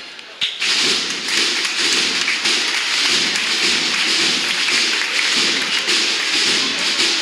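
Marching band percussion, snare and bass drums, playing a steady marching cadence while the brass are silent. It comes in sharply about half a second in, after the brass music has stopped.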